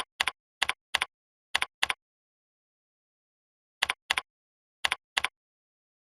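Computer mouse clicking: about ten sharp clicks, each a quick press-and-release double tick. Six come close together in the first two seconds, then a pause, then four more spread from about four to five seconds in.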